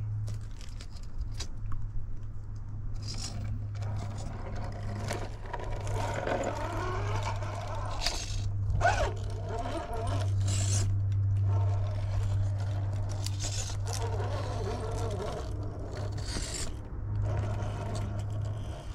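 A 1/10-scale Traxxas TRX4 rock crawler with a Fusion SE 1800KV brushless motor running at crawling speed: a steady low motor and drivetrain hum that dips a few times as the throttle eases. Over it, the tyres and chassis scrape and click against the rock.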